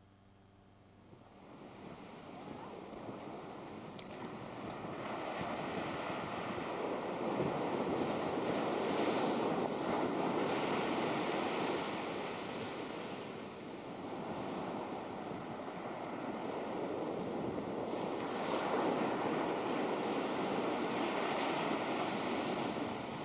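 Ocean surf breaking on a sandy beach, a rushing wash that swells and eases as each wave breaks and runs up the sand. It fades in from near silence about a second in.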